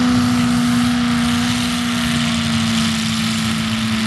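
Off-road vehicle engine running steadily, an even drone that sinks slightly in pitch, over a noisy rush.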